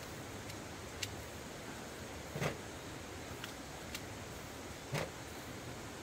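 Steady rush of a rocky mountain stream, with a few light clicks and taps of something handled close by, the two loudest about two and a half and five seconds in.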